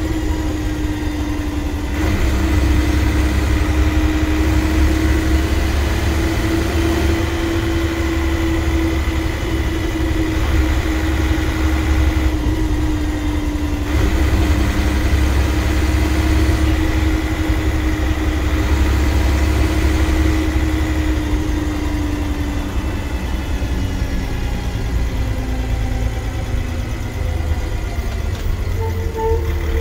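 Dennis Trident double-decker bus's Euro 2 diesel engine and driveline heard from the upper deck while under way: a deep steady rumble with a droning whine that holds, then slowly falls away later on. A few short beeps sound right at the end.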